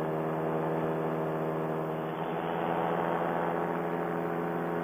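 Paramotor engine and propeller running steadily in cruising flight, a constant droning tone.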